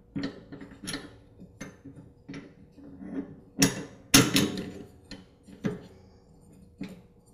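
Steel idler pulley knocking and clinking against its bolt, washer and the steel mower deck as it is worked into place with the belt behind it: a series of light clicks and knocks, with two louder clunks a little past halfway.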